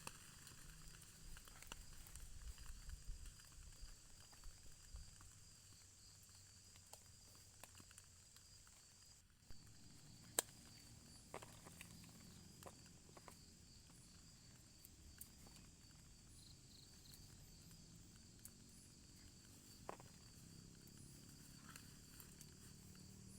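Faint forest ambience: a steady high-pitched insect drone with scattered light ticks and taps, and one sharper tap about ten seconds in. The background shifts abruptly a little before that.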